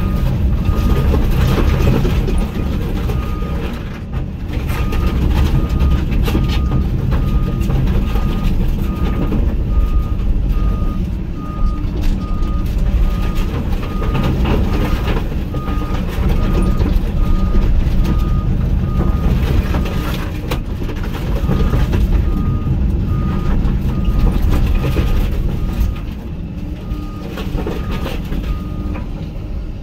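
Hyundai HX220AL excavator's diesel engine running under load, with its warning alarm beeping at a steady pace that stops briefly a few times, and scattered knocks over the engine.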